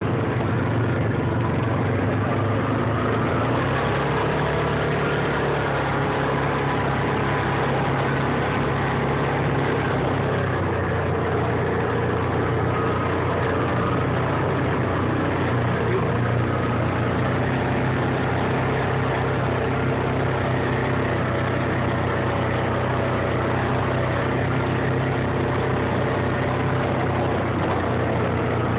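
Vehicle engine running steadily at low speed, heard from inside the cab as it drives over dirt tracks; the low drone shifts a little in pitch a few seconds in and again around ten seconds in.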